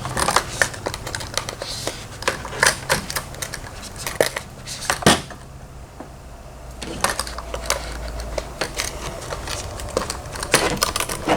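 Light metallic clicks and clinks of small tackle hardware being handled as a ring is fitted onto the end of a planer board rig, with a short pause about halfway through.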